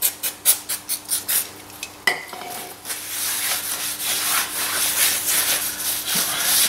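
Aerosol brake cleaner sprayed in a quick series of short hisses onto a new brake disc, stripping the anti-rust storage oil so it won't contaminate the new pads. About two seconds in the can is set down with a short metallic clink, then a cloth rubs steadily over the disc face.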